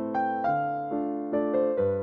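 Background music: a gentle electric-piano tune with notes struck about every half second.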